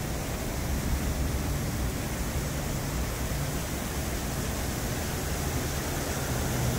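Steady rushing hiss of water in the sculpture's fountain pool, with a low rumble underneath.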